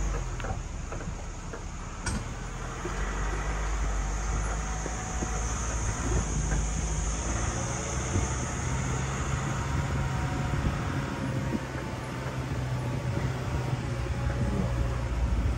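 Wind blowing on the microphone as a steady low rumble, with ocean surf washing in the background.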